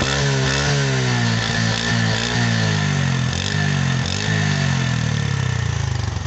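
Honda CD 70 motorcycle's single-cylinder four-stroke engine running while the throttle is blipped, its pitch rising and falling several times, then settling lower and fading near the end. A smooth exhaust note, not a cracked one.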